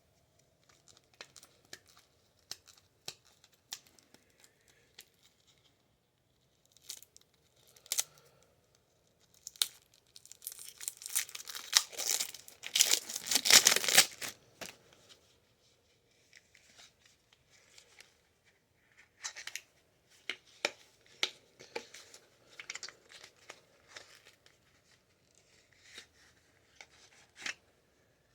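The wrapping on a pack of playing cards being torn and crinkled open by hand, with scattered clicks and rustles and a longer, louder stretch of tearing from about ten to fourteen seconds in.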